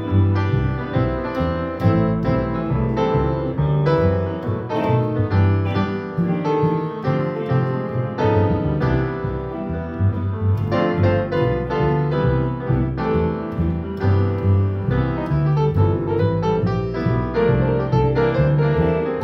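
Live trio of upright acoustic piano, plucked double bass and electric guitar playing together, the bass carrying a line of strong low notes under the piano.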